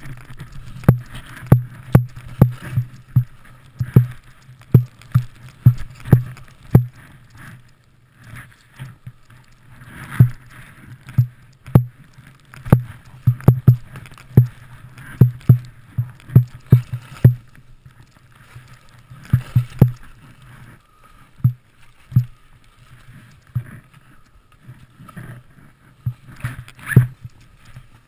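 Skiing through deep powder heard from a head-mounted camera: irregular thumps and knocks, several a second in bursts, as the skis and body jolt through turns and bumps, with a few quieter pauses.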